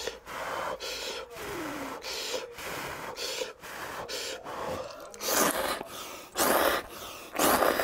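A man blowing on a chopstick-load of hot ramyeon noodles in a series of short breaths to cool them, then slurping them in with three loud slurps in the last three seconds.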